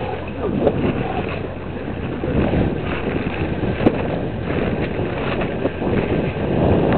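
Lettuce harvester's engine running steadily at a low drone, with wind buffeting the microphone. A single sharp click comes about four seconds in.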